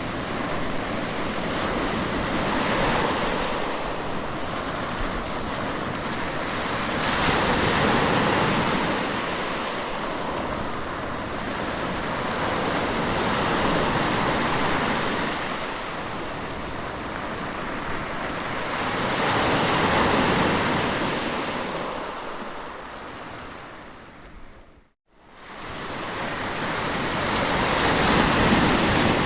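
Sea waves washing on a shore, surging and receding about every five to six seconds. The sound fades out to silence for a moment a little after two-thirds of the way through, then swells back in.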